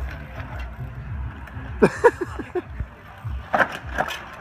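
Mountain bike tyres and frame knocking onto a wooden picnic table as the rider hops up: a clatter of sharp knocks about halfway through, then two more knocks near the end as the bike settles on the tabletop.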